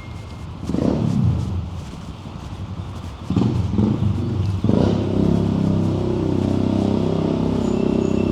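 Road traffic close by: a vehicle passes about a second in with a falling pitch, and from about five seconds on a heavy vehicle's engine runs steadily.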